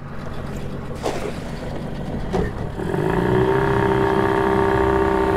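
Mercury outboard motor on an aluminium jon boat running steadily under wind and water hiss. About three seconds in, a steady humming engine tone comes up and holds.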